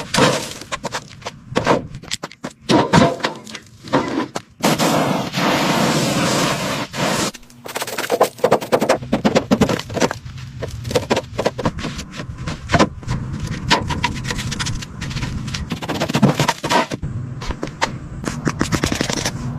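Workshop noise: many sharp knocks and clatter, some in quick runs, with a steady harsh noise lasting about three seconds from about five seconds in.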